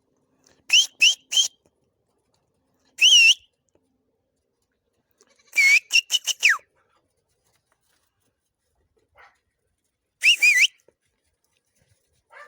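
A person whistling to call goats: four bursts of short, loud whistles that rise and fall in pitch, the third burst ending on a long falling whistle.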